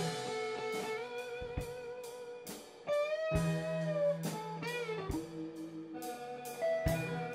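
Improvised instrumental jam: electric guitar playing long held notes that waver and bend in pitch, over sparse drum hits about twice a second.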